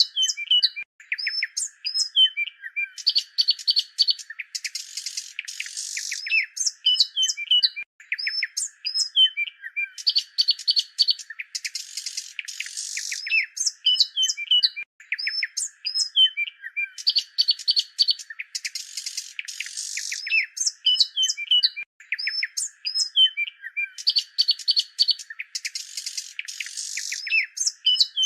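Small birds chirping and twittering in quick, overlapping calls and trills, a short bird recording looped so the same pattern comes round about every seven seconds.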